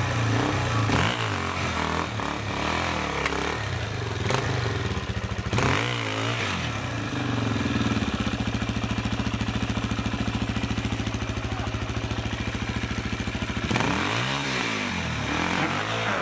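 Trail motorcycle engine working the bike over a fallen log: the revs rise and fall in short surges, settle to a steady, evenly pulsing low run from about halfway through, then rise and fall again near the end.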